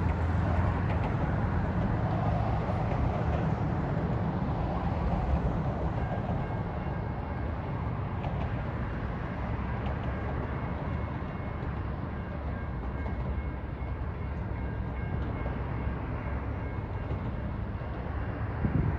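Two EMD SD40-3 diesel locomotives, with 16-cylinder two-stroke engines, approaching slowly, heard as a steady low rumble. A faint high whine joins about six seconds in.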